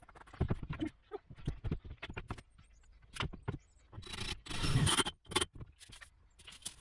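Irregular knocks, clicks and scrapes of tools and plywood being worked on a steel bed frame, with a louder noisy stretch of about a second near four seconds in as a cordless drill drives a self-drilling screw through the plywood into the steel.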